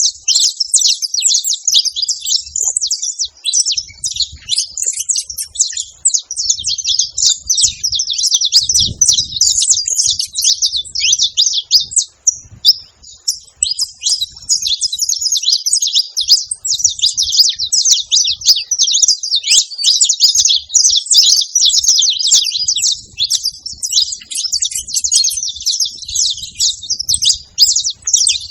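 A group of saffron finches chirping and chattering together while feeding: a dense, overlapping stream of high chirps with a brief lull about twelve seconds in.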